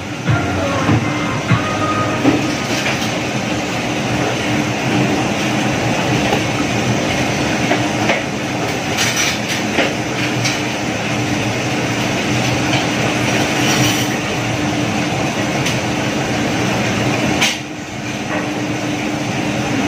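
A steady, loud mechanical roar with a low hum running under it, and a few scattered clicks and knocks. It dips briefly near the end, then carries on.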